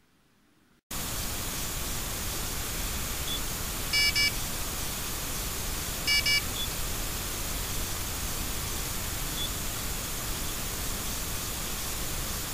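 Steady outdoor hiss, broken twice by a short electronic beep from a fishing bite alarm, about four seconds in and again about two seconds later, which signals line being pulled: a fish taking the bait.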